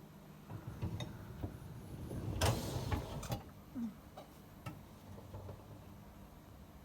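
Light clicks and knocks from a dishwasher's loaded rack being handled, with a short rattling slide a little over two seconds in.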